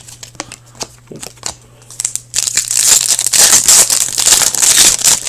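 A hockey card pack's foil wrapper crinkling loudly as it is handled and torn open, after a couple of seconds of light clicks from cards being handled.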